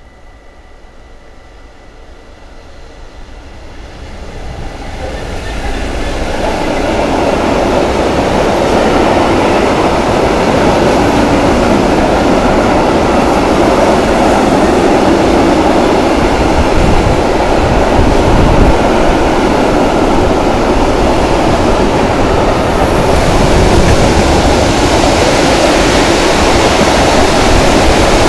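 Class 66 diesel locomotive approaching with a loaded coal train, growing steadily louder over the first several seconds, then the loud, steady rolling noise of the heavy hopper wagons passing close by. A level-crossing bell rings faintly before the train arrives.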